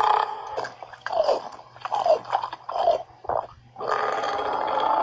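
A person burping: a long burp ends just after the start, several short burps follow, and another long, drawn-out burp begins about four seconds in.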